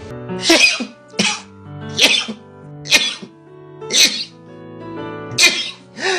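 A person sneezing six times in quick succession, about a second apart, over background music.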